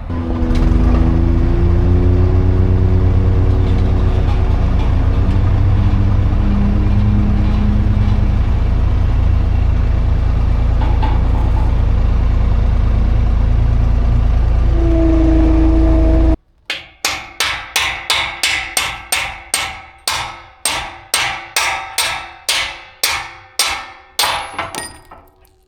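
A skid steer's engine running loud and steady, then stopping abruptly. This is followed by about twenty evenly spaced hammer blows on a steel punch to drive out a pin, two to three a second, each ringing briefly and growing fainter near the end.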